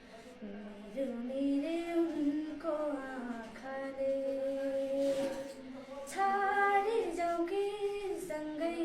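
A female voice singing a melody unaccompanied, with several long held notes that bend between pitches.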